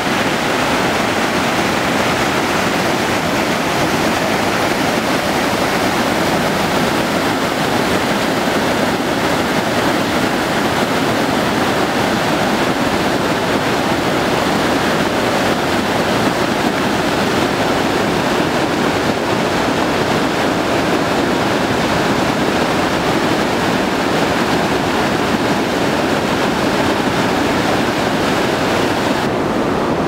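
Rushing water of the White Nile, a loud, steady rush with no break. Just before the end the hissing upper part of the sound suddenly thins out.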